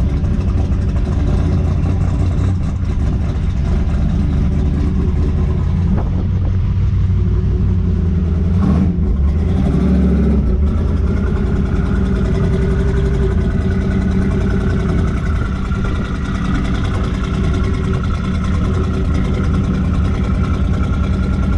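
The custom 1949 GMC cab-over's 427 big-block V8 running through dual 4-inch exhausts, a steady deep idle with a short rise in revs about nine seconds in.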